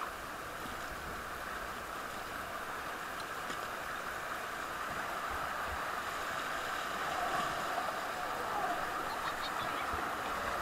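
River rapids rushing around an inflatable raft, a steady hiss of fast water that grows a little louder in the second half as the raft runs into the white water.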